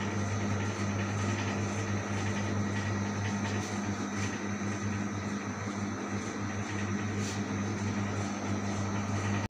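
Steady low hum with a constant rushing noise, the drone of a fan or motor running, with a few faint clicks.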